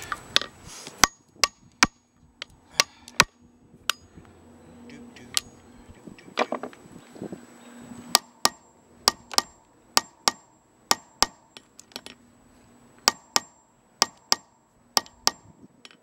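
Claw hammer striking hickory nuts on a concrete cinder block to crack their hard shells: sharp whacks, about two dozen, often in quick runs of two to four.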